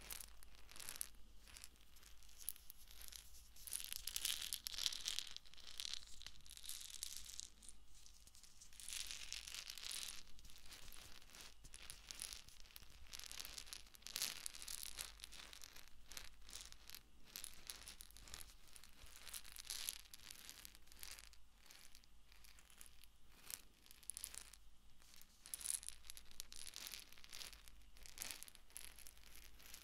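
Eggs rubbed and tapped against the ears of a binaural microphone: a close, dense run of faint scratchy rustling and small clicks, mostly high-pitched, swelling a little several times.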